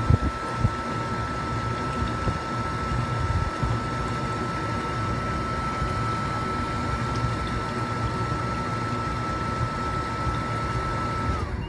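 Atwood Hydroflame RV furnace blower running with a steady whine, then cutting out near the end and winding down with a falling pitch. It is the furnace shutting itself off after failing to stay lit, a fault later traced to the igniter and control board.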